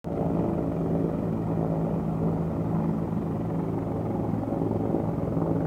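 Helicopter running steadily on the ground, its engine and rotor making a constant low drone.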